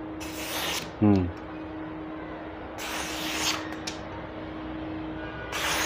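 Golok slaughtering-knife blade slicing through a held sheet of paper in a sharpness test, three quick slicing strokes, each a brief papery hiss.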